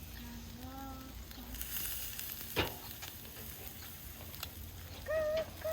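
Minced-meat kebab on beef-rib skewers sizzling over charcoal on a mangal, with one sharp crackle about two and a half seconds in.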